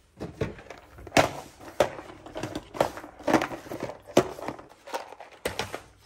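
Old front-loading washing machine knocking and clattering irregularly as it runs, a sharp knock every half second to second. The parts that hold its drum have come loose.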